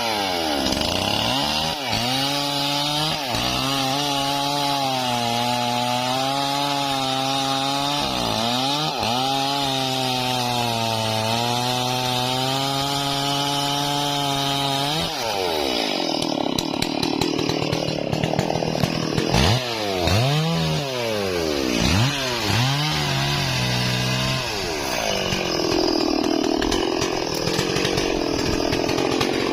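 Stihl MS 440 two-stroke chainsaw cutting into a Bayur tree trunk. In the first half the engine's pitch dips and recovers several times as the chain loads up in the wood. From about halfway on it swings up and down in pitch in a series of rises and falls.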